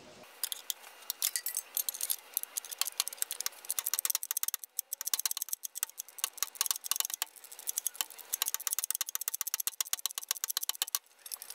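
A 16 mm ratcheting wrench clicking in quick runs of strokes as a top engine-mount bolt is loosened, with brief pauses between runs.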